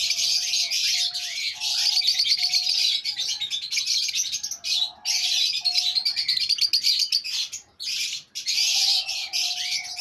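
Many caged birds chirping and chattering in a dense, continuous chorus, dropping out briefly twice, around five and eight seconds in. A lower steady note sounds on and off beneath the chatter.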